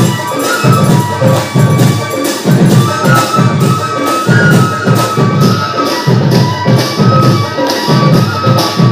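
Assamese Harinam devotional music with a steady drum beat and the seated group's hand-clapping keeping time.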